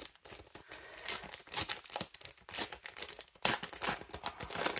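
Plastic foil wrapper of a trading-card pack crinkling and tearing as it is peeled open by hand, in a run of irregular crackles.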